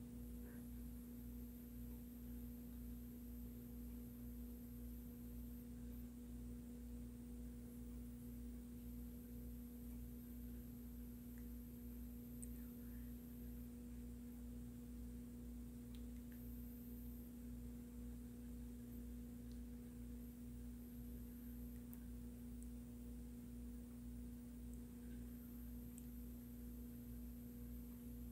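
A faint steady hum with a constant pitched tone that never changes, and a few faint ticks scattered through it.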